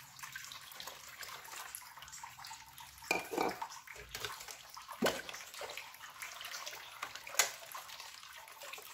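Water pouring from a measuring jug into a stainless steel pot of liquid chocolate pudding mix, then a spatula stirring the mixture. A few sharp knocks of the spatula against the pot come about three, five and seven seconds in.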